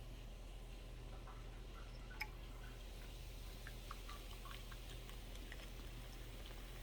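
Faint fizzing of freshly poured Sprite foaming in a bowl: scattered small crackling ticks, with one sharper click about two seconds in, over a steady low hum.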